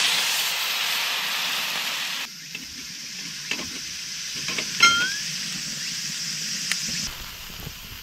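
Rehydrated morels and porcini tipped into a hot pan of bacon and garlic in olive oil over a wood fire, sizzling loudly at first and then frying more quietly as they are stirred with metal tongs. A few sharp clicks and a short rising chirp come about halfway through.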